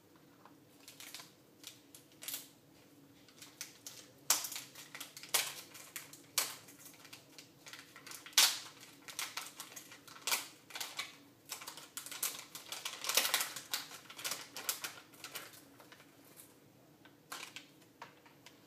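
Small tools and parts being handled on a tabletop: irregular sharp clicks and taps, coming thick and fast through the middle and thinning out near the end.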